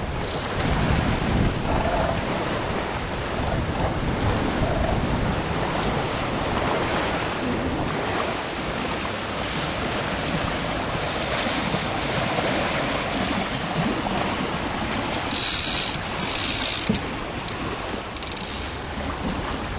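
Wind and sea water rushing past a sailing yacht under way, with the clicking of winch ratchets and deck blocks mixed in. Louder hissing bursts come about fifteen to seventeen seconds in and again near the end.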